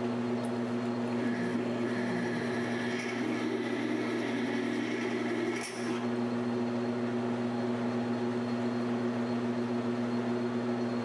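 A PM1236T metal lathe running steadily with a low hum, while a drill bit in the tailstock cuts into a spinning titanium round bar. A higher scraping tone from the cut comes in about a second in and fades just before the middle, with a brief dip in the sound there.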